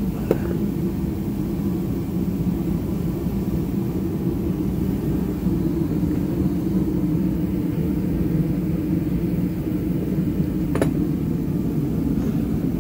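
A truck's diesel engine idling steadily, a continuous low rumble, with a faint click just after the start and another near the end.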